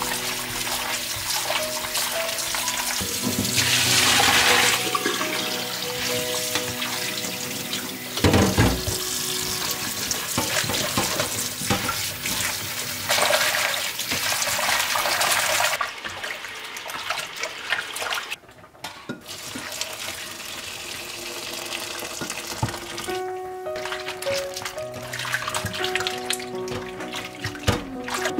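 Kitchen tap water running and splashing into a bowl as hands rub and rinse strips of boiled pig skin. The rush of water stops a little past halfway, leaving quieter sloshing and handling in the bowl.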